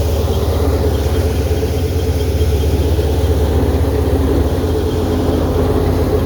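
Tractor's diesel engine running steadily at an even speed.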